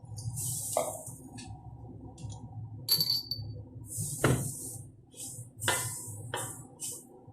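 Metal cooking utensil scraping and clinking against a pan while stirring, in short strokes about a second apart, with a few sharper clinks.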